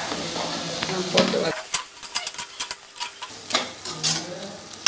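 Onion, tomato and fresh herbs sizzling in the oil of a pressure cooker pan, then a perforated steel skimmer stirring them, scraping and clinking quickly and irregularly against the pot from about two seconds in.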